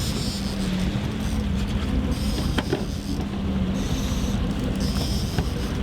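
A boat engine running steadily with a low hum, wind buffeting the microphone, and a few faint clicks.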